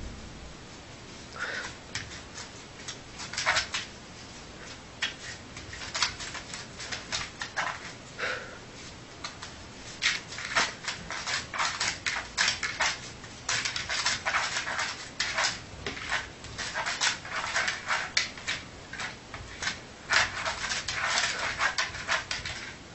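Sleeping puppy making many short yips and whimpers in its sleep, in irregular clusters that grow busier from about ten seconds in.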